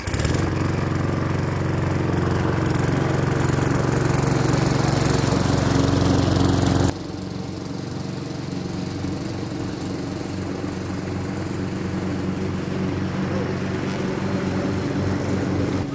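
Ruris self-propelled walk-behind lawn mower running while mowing, a steady drone with a strong low hum. About seven seconds in it drops abruptly to a quieter level and keeps running.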